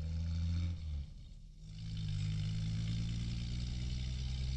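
Engine of a white Mercedes-Benz van running steadily as it drives along a road. The sound dips briefly about a second in, then comes back steady.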